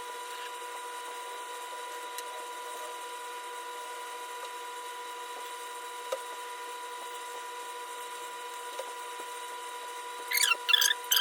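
Faint steady electrical whine, with a few soft ticks as cut pieces of rice paper are fitted into a cake decoration. Near the end come a few short, high chirping squeaks, the loudest sound.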